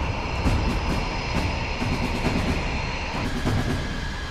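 Jet engine running: a steady rumble under high whining tones, the whine stepping to a lower pitch about three seconds in.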